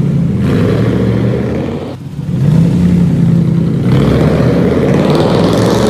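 Toyota 4Runner's 4.7-litre V8 through an aftermarket exhaust, revving hard as the SUV pulls away and turns. It eases briefly about two seconds in, then pulls again louder. The note echoes off the concrete of a parking garage.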